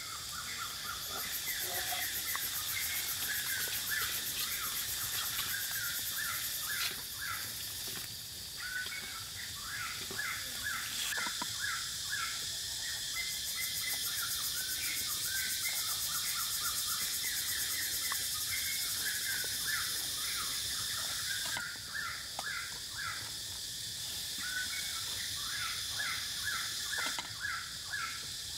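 Forest ambience: a steady, high insect drone with many short, repeated bird chirps throughout, and a few faint knocks of a knife cutting a cabbage on a wooden chopping block.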